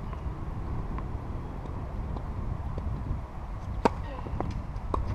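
A tennis racket strikes the ball on a serve with one sharp crack near the end, followed about a second later by a fainter knock, over a steady low background rumble.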